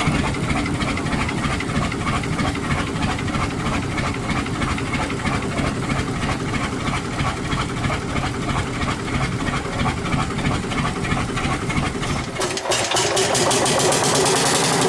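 Big old engine running steadily with an even, rhythmic beat. About twelve seconds in, it changes abruptly to another engine with a faster, higher-pitched mechanical clatter.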